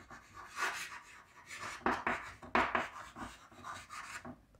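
Handwriting: a writing tool scratching across a surface in short, irregular strokes, stopping just before the end.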